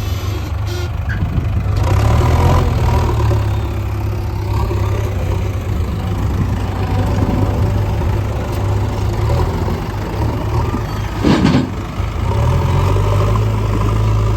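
Diesel engine of a JCB 3DX backhoe loader running under work, revving up at times as the loader digs and lifts mud. A single loud knock comes about eleven seconds in.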